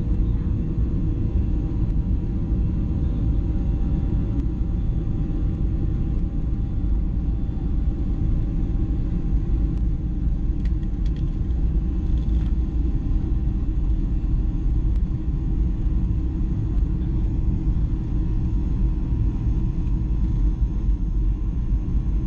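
Steady low rumble heard inside the cabin of a Boeing 737-800, its CFM56-7B engines running evenly, with a few faint steady whining tones above the rumble.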